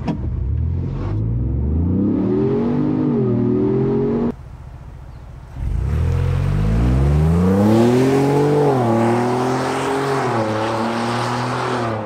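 Ford Bronco's 2.7-litre twin-turbo EcoBoost V6 accelerating at wide-open throttle through a Magnaflow Overland cat-back exhaust in its shortest pipe configuration. The engine note climbs and falls back at each upshift, several times. It is heard first inside the cabin, then from behind as the truck pulls away.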